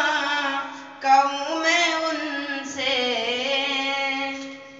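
A boy singing an Urdu naat unaccompanied, in long held notes with a wavering, ornamented melody. The voice breaks off briefly about a second in, then carries on, and trails off near the end.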